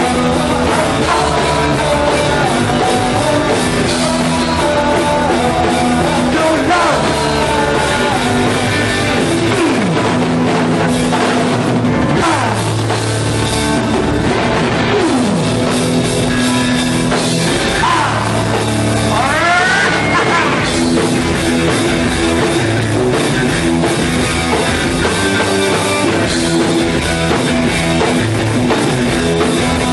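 Punk rock band playing live and loud: electric guitars, bass and drum kit, with guitar slides sweeping down and up around the middle.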